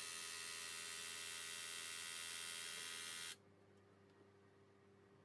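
Graco TrueCoat 360 VSP handheld airless sprayer's electric pump running with a steady buzz as it sprays flushing water during cleaning. It cuts off suddenly about three seconds in.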